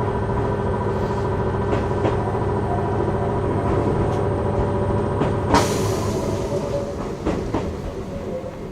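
Chichibu Railway electric train running, heard from the driver's cab: a steady rumble with a faint held hum and occasional clicks of the wheels over rail joints. About five and a half seconds in, a sudden sharp burst of noise fades away within half a second, after which the running sound eases slightly.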